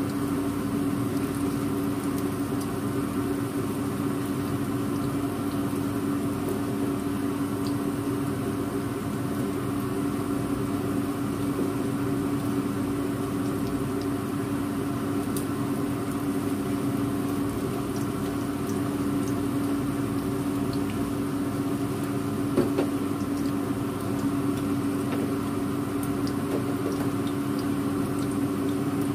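Battered galunggong (round scad) frying in oil in a wok: a soft, even sizzle with scattered faint pops, under a steady low hum. One sharp knock a little past two-thirds through.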